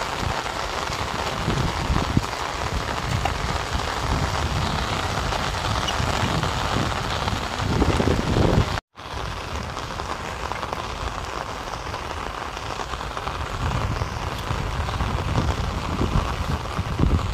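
Heavy rain falling steadily on soaked ground and standing water, with irregular low rumbling swells under it. The sound cuts out for a moment about nine seconds in.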